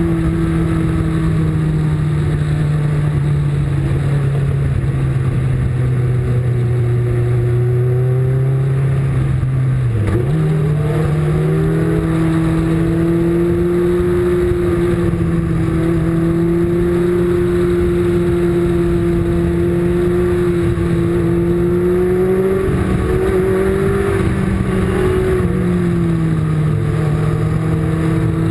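Race car engine heard from on board, running hard at high revs under a steady rush of wind and road noise. About ten seconds in, the note dips sharply for a moment, then climbs straight back; it wavers again near the end.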